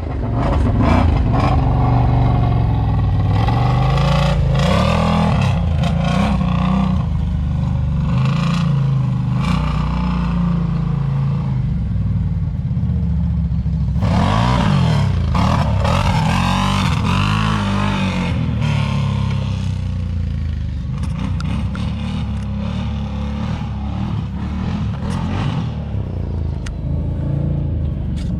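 Can-Am Renegade 1000 XMR ATV's V-twin engine revving up and down as it is ridden hard, starting suddenly and running loud throughout, with some clatter mixed in.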